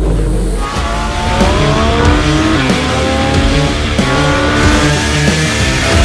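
A sports car engine revving hard under acceleration. Its pitch climbs, drops back a couple of times and climbs again, over music with a steady beat.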